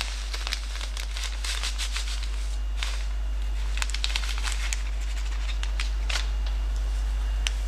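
Clear plastic bag crinkling as dark roasted steeping malt is poured from it into a mesh grain bag: scattered crisp clicks and crackles of grain and plastic, over a steady low hum.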